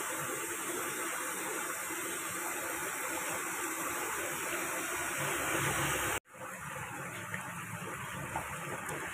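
A hand mixing wet tapioca flour batter in a plastic basin: a steady wet mixing noise that cuts out for a moment about six seconds in.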